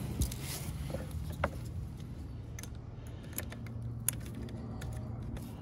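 Light clicks and rattles of an Ethernet cable being handled and plugged into the admin port of a satellite terminal, with a sharper click about four seconds in, over a steady low hum.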